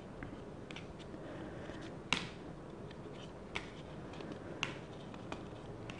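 Stiff board-game cards being peeled one at a time off a hand-held deck. Each gives a short, sharp snap, about once a second, and the loudest comes about two seconds in.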